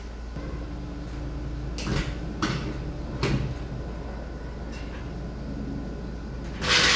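A few sharp knocks, one about every half second to second, then a short, louder rushing burst near the end, over a steady low hum.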